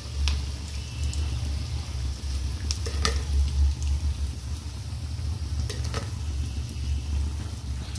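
Battered potato fritters deep-frying in hot oil in a metal kadhai, sizzling steadily over a low steady rumble. A few sharp clinks of a steel fork against the pan come as the fritters are turned and lifted out.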